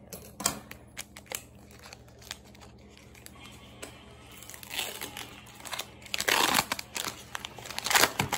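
Foil trading-card booster-pack wrapper crinkling and tearing as it is pulled open by hand: scattered small clicks, then several short crackly bursts, the loudest near the end.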